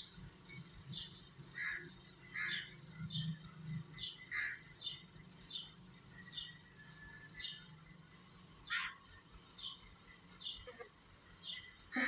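Birds chirping: a string of short, high chirps about every half second, with a louder, lower call now and then.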